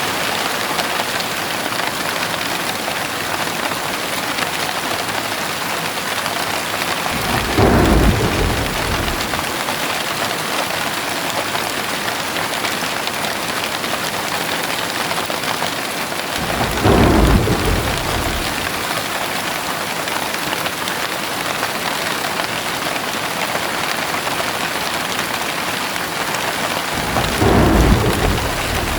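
Heavy rain falling steadily, with three low rolls of thunder about ten seconds apart that swell and fade over a second or two each.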